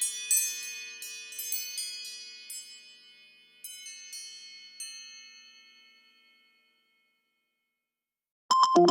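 An iPhone ringtone of bright, chime-like struck tones. The strikes thin out and ring away to silence about six and a half seconds in. Just before the end a new ringtone starts, a louder synthesizer melody.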